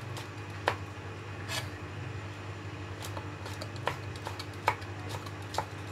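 Kitchen knife slicing red chilies on a round wooden chopping board: irregular taps of the blade against the wood, roughly one a second.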